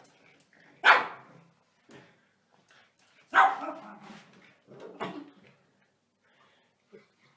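A dog barking: two loud barks, about a second and three and a half seconds in, and a softer one about five seconds in.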